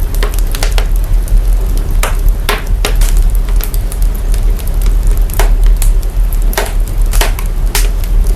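Wood fire crackling, processed with heavy bass boost: a deep, steady rumble under a hiss, broken by sharp crackles and pops at irregular intervals, about one a second.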